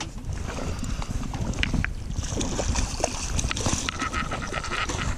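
Wind buffeting the microphone and small waves slapping against a boat hull while a fish is being played on a rod. From about two seconds in to near the end, a fast, even ticking from the fishing reel, as line is cranked in or pulled off the drag.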